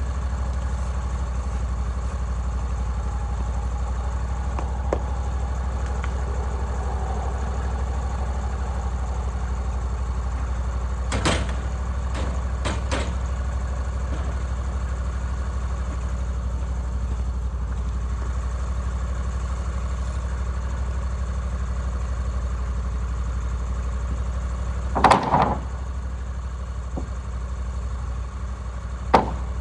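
The Woodland Mills 136MAX sawmill's gasoline engine idling steadily, with a few sharp metallic knocks partway through and two louder ones near the end.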